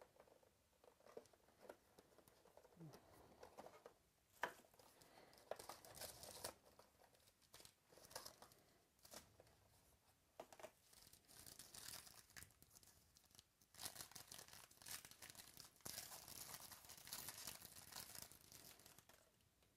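Faint tearing and crinkling of plastic wrapping as a sealed box of trading cards is opened, in irregular crackles that grow busiest near the end.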